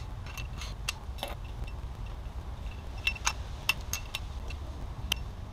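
Metal hand tools clinking against the water pump pulley and its bolts on a BMW M54 engine: a handful of sharp, irregular metallic clicks over a few seconds, over a steady low hum.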